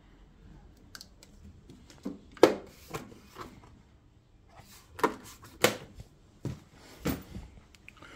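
Scattered clicks and knocks, about ten, irregularly spaced, from hands working at a gas boiler's circulating pump head and wiring.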